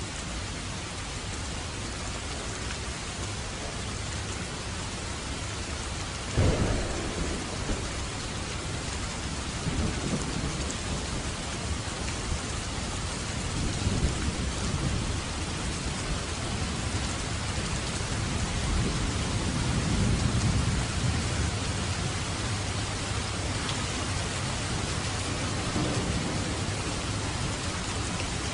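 Steady rain falling, with a sudden thunderclap about six seconds in followed by low rolling thunder that swells and fades several times.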